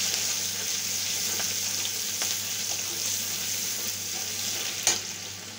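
Chopped onions sizzling in hot mustard oil in a metal kadai while a metal spatula stirs them, as they fry toward brown. There is one sharp knock near the end.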